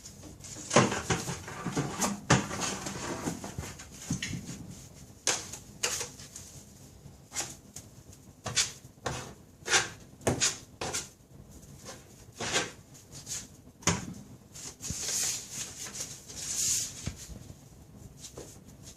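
Drywall taping knife working joint compound over a sheetrock seam: a series of short, irregular scrapes and knocks.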